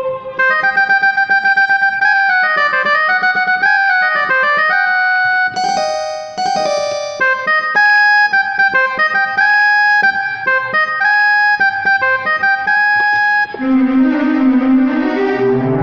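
Background instrumental music: a keyboard melody of short, quick notes, changing near the end to sustained, fuller chords.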